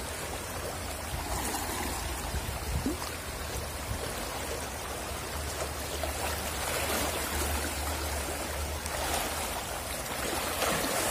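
Shallow, rocky river flowing over stones: a steady rush of running water.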